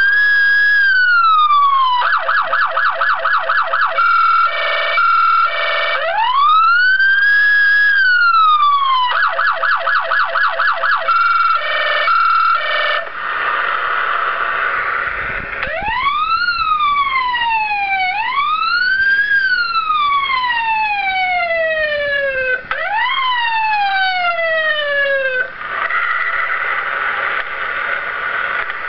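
Electronic police siren cycling through its tones: a slow rising-and-falling wail, a rapid yelp, and an alternating two-tone. After that comes a run of sweeps that rise quickly and fall slowly, then a harsher steady tone near the end.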